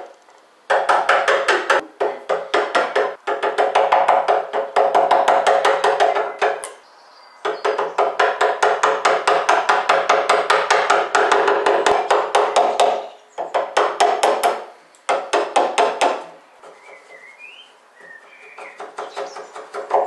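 Hammer tapping a wood chisel in quick, light strokes, several a second, paring a shallow recess out of the edge of a wooden door. The taps come in runs of a few seconds with short pauses between.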